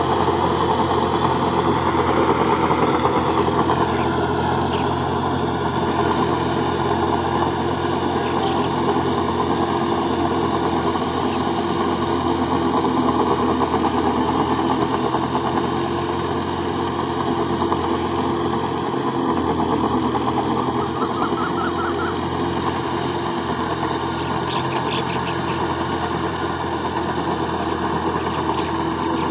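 Tractor's diesel engine running steadily under load as it rotavates a flooded rice field, churning the mud into puddle.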